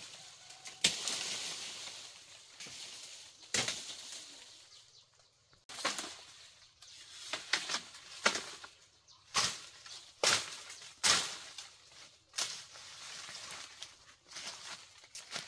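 Bamboo leaves and dry leaf litter rustling and crackling as someone pushes through a bamboo thicket, in irregular sharp crackles, each trailing off into a rustle.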